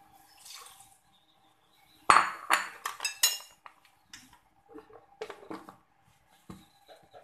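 Kitchenware clinking: a quick run of sharp, ringing clinks about two seconds in, then scattered lighter taps and a dull knock as the blender jar's lid is handled. The blender motor is not running.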